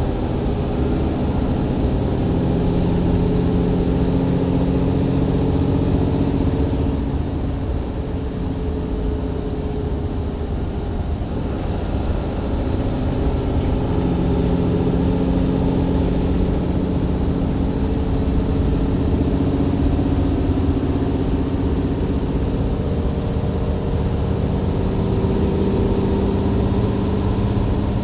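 Diesel engine of a Mercedes-Benz Citaro C2 LE hybrid bus pulling hard under full-throttle kickdown through its Voith automatic gearbox, heard from inside the bus. The engine note climbs steadily, sags briefly about eight to twelve seconds in, then climbs again.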